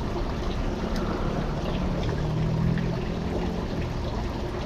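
Steady rushing background noise, with a low hum that comes in about a second in and fades out shortly before the end.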